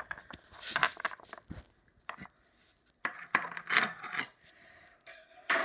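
Irregular light clinks and knocks of small hard objects, in two clusters of sharp clicks: one about a second in, another from about three to four seconds in.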